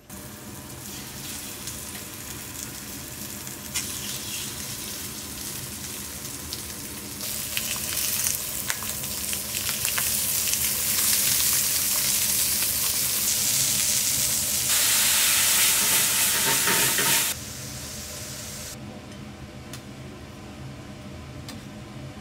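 Pieces of Korean native chicken searing in oil in a stainless steel frying pan: a steady sizzle that builds to its loudest past the middle, then drops suddenly to a quieter sizzle near the end, with a few sharp clicks along the way.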